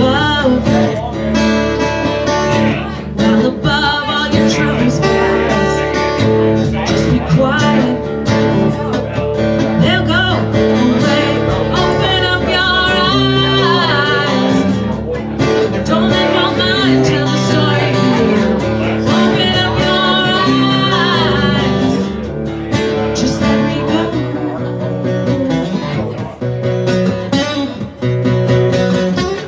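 Band performing a rock song: guitar with a sung lead vocal line. The vocal drops out after about 22 seconds while the guitar carries on.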